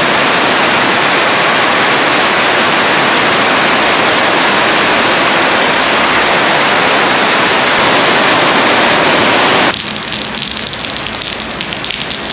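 Heavy rain pouring down as a loud, steady hiss. About ten seconds in it cuts abruptly to quieter, patchier rain with a patter of separate drops.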